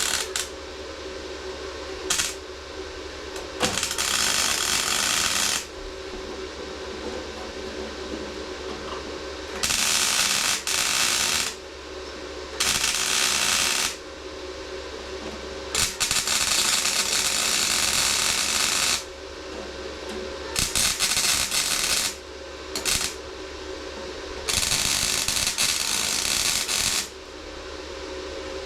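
MIG welder arc crackling on sheet-steel body panel, laid down as a series of short stitch welds: about eight bursts, each stopping abruptly after up to three seconds, with a steady hum from the welder between them.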